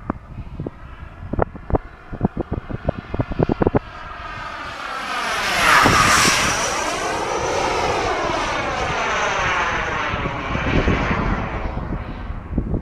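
Radio-controlled model jet's turbine flying past: a rush with a steady high whistle rises from about four seconds in, is loudest near six seconds as it passes closest, then slowly fades. A run of sharp knocks comes before it in the first few seconds.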